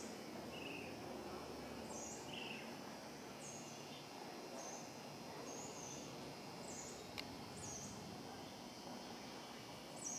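Small birds chirping, short high chirps repeating about once a second, over a steady low background hum. A single sharp click comes about seven seconds in.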